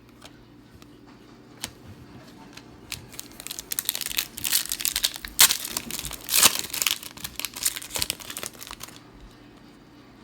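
Plastic wrapper of a trading-card pack crinkling and rustling as it is handled, in irregular bursts that build up and fade away after a few seconds.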